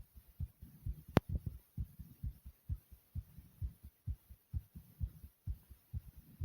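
A person's heartbeat thumping, a steady run of low thumps at about two a second, with one sharp click a little over a second in.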